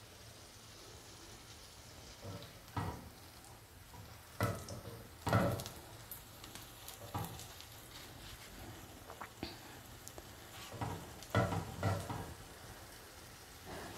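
Breadcrumbed scotch egg frying in hot oil in a pan, with a low sizzle. Several short knocks and clatters come through, the last of them as a spatula turns the egg in the pan near the end.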